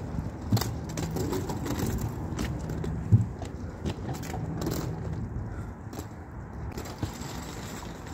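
Wheeled suitcases rolling across the floor with a low drone, amid footsteps and small clicks and rattles. There are two sharp knocks, one about half a second in and a louder one about three seconds in.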